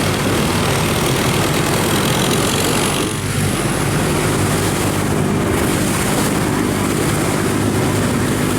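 Diesel engine of a loaded river cargo barge running hard as it passes, a loud steady drone with a faint high whine rising over the first few seconds.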